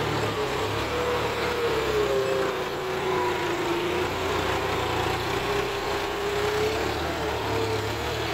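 John Deere 5045D tractor's three-cylinder diesel engine labouring under load as it hauls a heavily loaded soil trolley up a slope. A steady low engine note runs with a whine that slowly dips and rises in pitch.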